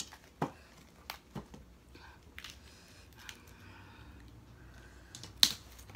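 Handling and eating food at the table: a scattering of sharp clicks and crisp snaps from fresh greens being picked up and broken, with the loudest snap near the end.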